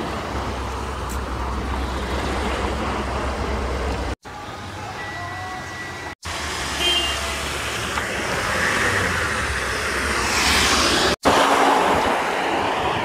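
Road traffic: cars and trucks driving past on busy streets, a steady noise with a low rumble, cut off briefly three times where separate clips are joined. Near the end a box truck passes close alongside, the loudest moment.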